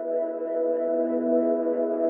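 Ambient background music: a held chord of several steady tones.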